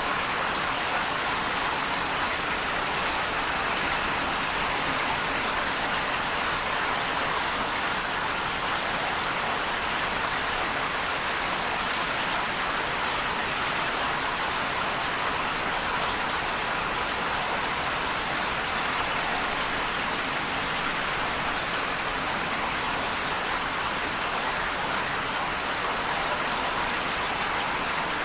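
Steady rain: an even, unchanging hiss of falling drops.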